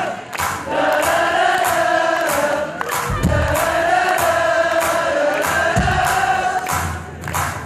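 Live rock band playing loudly, with vocals and a regular pounding beat, and the audience singing along in a mass of voices. The music drops out briefly near the start and again near the end.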